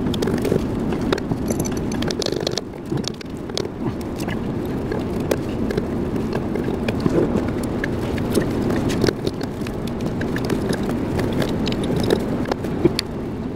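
Scattered short knocks and clicks of a red plastic hammer tapping at a bus engine's air compressor and of tools against metal, over a steady low rumble.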